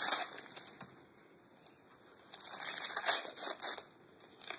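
Wrapping paper rustling and crinkling as a child unwraps a present by hand: a short burst at the start, then a longer bout of rustling from about halfway in.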